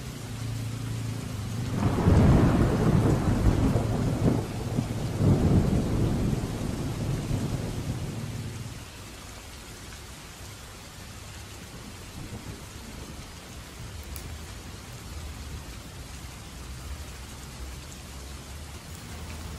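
A roll of thunder rumbles for about six seconds, starting about two seconds in, over steady rain falling on the roof; after it fades, the rain goes on alone.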